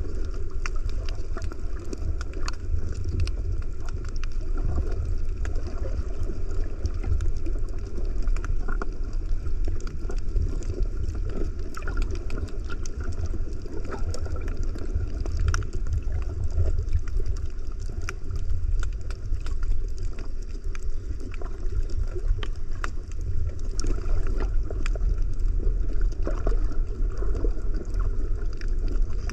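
Muffled underwater sound picked up through a camera's waterproof housing: a steady low rumble of moving water with scattered small clicks and crackles throughout.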